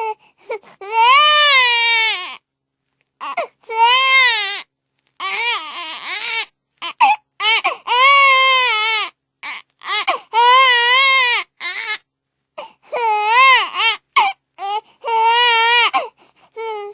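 A baby crying: a string of about seven wavering wails, each a second or two long and rising and falling in pitch, broken by short gasps for breath.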